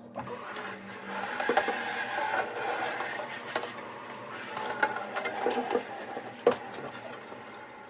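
Washing up at a kitchen sink: water running steadily, with dishes knocking and clinking now and then.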